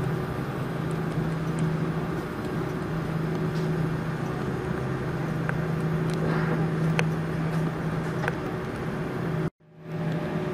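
Airbus A340-300 cabin noise while taxiing: its CFM56 engines at idle give a steady low hum under an even rush, with a few faint clicks. The sound cuts out for a moment near the end.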